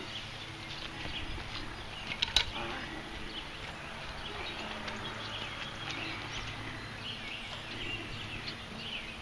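Birds chirping and calling in the background, with a few sharp clicks about two seconds in.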